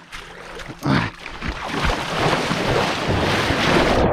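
River water splashing and churning right at the microphone as a person wades in, building to a steady rush over the last two or three seconds. A brief vocal sound about a second in.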